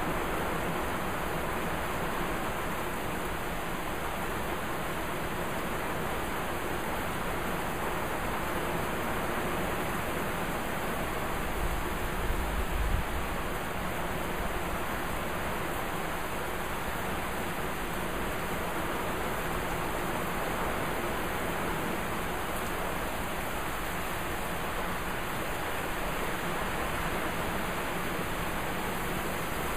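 Heavy rain falling steadily in a thunderstorm, an even hiss with no let-up. A brief low rumble swells about twelve seconds in.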